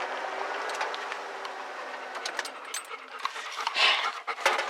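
Dogs panting inside a car, with a few clicks and knocks in the second half.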